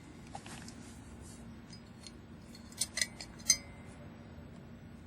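Small metal parts clinking lightly, three or four sharp clinks close together a little past halfway, over a faint steady hum.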